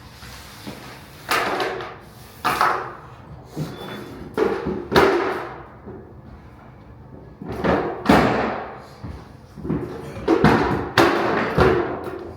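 Vinyl flooring planks being knocked into place: about a dozen sharp knocks, irregular and in groups of two or three, each trailing off briefly.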